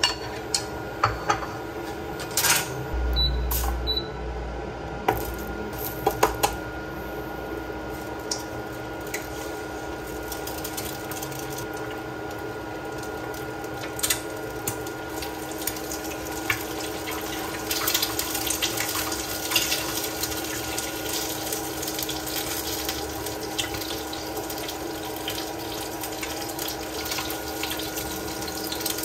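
Eggs frying in a nonstick pan on an induction cooktop, over a steady hum from the cooktop. Sharp knocks and taps come near the start as eggs are cracked and handled at the pan. A crackling sizzle grows fuller in the second half.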